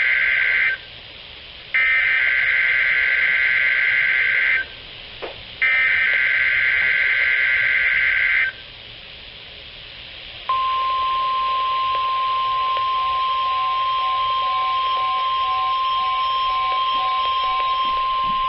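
NOAA Weather Radio emergency alert test through a Sangean CL-100 weather radio's speaker. First come the screeching digital SAME header bursts, three of them with short gaps. Then the steady 1050 Hz warning alarm tone starts about ten seconds in and holds to the end, with a fainter beep pulsing about twice a second over it.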